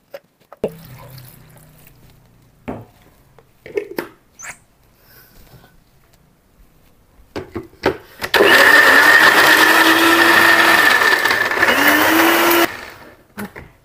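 Countertop electric blender starts about eight seconds in and runs loud for about four seconds, grinding chillies, shallots, garlic, ginger and candlenuts into a sambal paste, then cuts off suddenly. Its motor pitch sags briefly near the end and climbs back. Before it, a few light knocks come from the jug being handled and set on the base.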